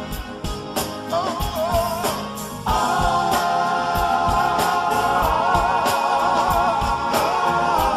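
Live soul ballad: a band plays a slow, steady drum beat. A lead voice sings a short wavering phrase, then from about three seconds in a vocal group holds a long, sustained harmony chord.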